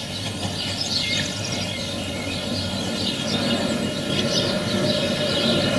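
Steady low rumble of background noise, growing a little louder near the end, with short high wavering chirps over it every second or so.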